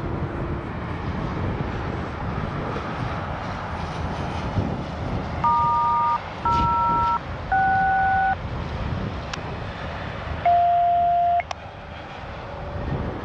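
Four touch-tone (DTMF) dialing beeps, each a pair of pure tones lasting under a second. Three come in quick succession about halfway through and a fourth about two seconds later, over a steady outdoor rumble and wind noise.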